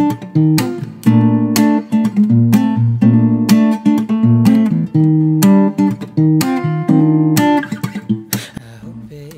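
Background music: acoustic guitar strumming chords in a steady rhythm, about two strums a second, dropping away near the end.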